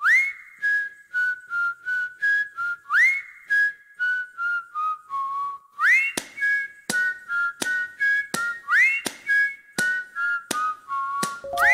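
Background music led by a whistled melody. Each phrase opens with an upward slide into a high note, about every three seconds, over light, regular percussive clicks. Lower plucked-sounding notes come in near the end.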